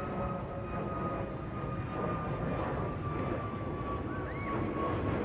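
Twin-engine jet airliner flying overhead: a steady jet-engine roar with a thin whine that slowly falls in pitch as it passes.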